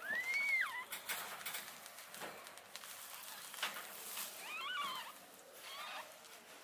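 Newborn kittens mewing in thin, high squeaks that rise and fall: one call at the start, a cluster of shorter cries about five seconds in, and one more a second later. Soft rustling of the cloth they lie on comes in between the calls.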